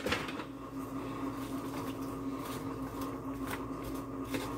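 Sliced onions sizzling in olive oil in a skillet as they are sautéed and stirred, with a few faint ticks from the stirring. A steady low hum runs underneath.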